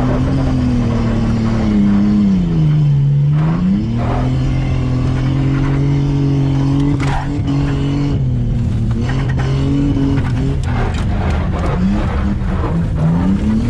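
Car engine held at high revs while skidding: the pitch dips and climbs back about three seconds in, and rises and falls in short revs near the end.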